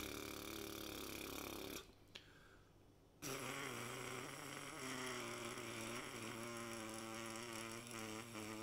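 Trumpet mouthpiece buzzed with the lips as a gentle embouchure warm-up: a long buzzed note that stops about two seconds in, a pause of about a second, then a second, longer buzzed note whose pitch wavers slightly.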